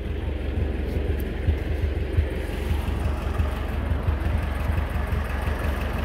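A 1956 Ferguson TO35 tractor's four-cylinder engine running with a steady low pulse as the tractor rolls slowly forward.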